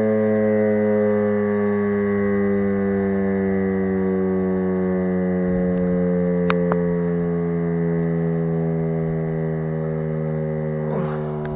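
Federal Signal Model 5 outdoor warning siren winding down after a test, its rotor coasting: a steady chord of tones slowly falling in pitch and fading, with one sharp click about six and a half seconds in.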